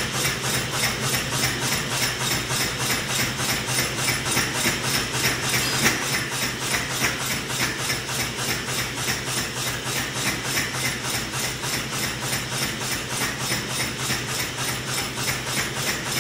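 Massey power hammer running idle with no work under the dies: a steady, even rhythm of about three beats a second over a constant motor hum.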